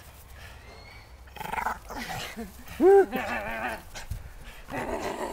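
Dog growling in short bouts while tugging hard on a rope toy, with one short, loud rising-and-falling whine about three seconds in.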